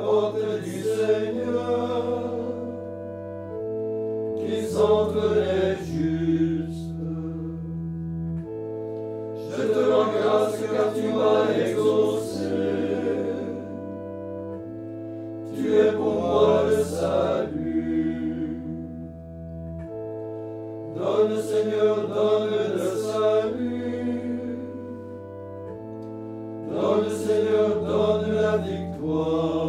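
Small male choir chanting in short sung phrases, about one every five to six seconds, over sustained organ chords that hold and change beneath the voices.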